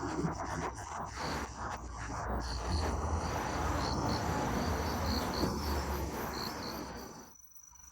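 Outdoor ambience of insects: a steady high-pitched buzz and repeated chirping over a noisy background, which drops away suddenly near the end.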